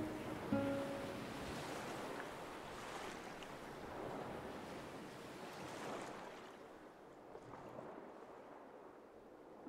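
Sea waves washing in over rocks on a pebble shore, swelling and ebbing several times, then growing quieter in the last few seconds.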